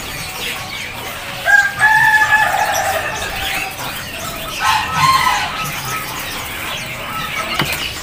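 A rooster crowing twice, each crow about a second long, about one and a half and five seconds in, amid faint chirping of caged birds.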